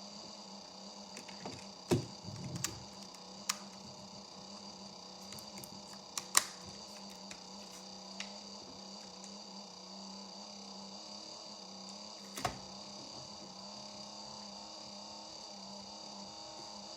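Desktop PC running with a steady low hum and a steady high whine, broken by a few sharp clicks, the loudest about two and six seconds in.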